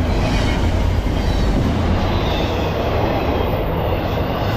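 Intermodal freight train's double-stack container cars and trailer flatcars rolling past close by at speed: a steady rumble of steel wheels on rail.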